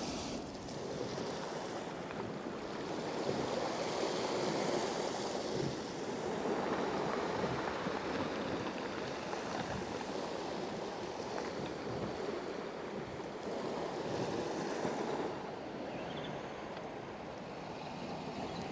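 Small waves washing onto a pebble shingle beach, the wash swelling and easing every few seconds, with wind on the microphone.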